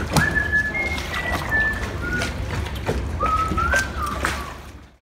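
A person whistling a slow melody in clear held notes that step up and down, with a few light knocks; the sound fades out just before the end.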